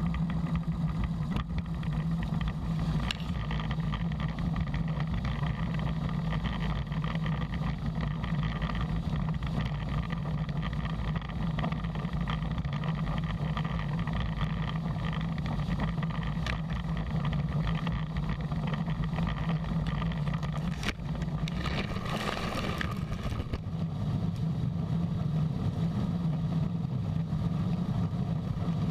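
Heavy farm machinery's diesel engine running steadily under load, with a brief rushing hiss about 22 seconds in.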